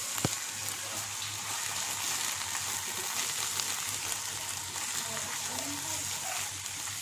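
Brinjal pieces frying in oil in a pan with a steady sizzle as a spatula stirs the masala paste through them. There is one sharp knock just after the start.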